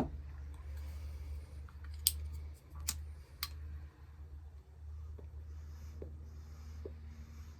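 A few sharp clicks and small lip pops from someone drawing on and handling a briar tobacco pipe while trying to keep it lit, with soft faint puffs later on, over a steady low hum.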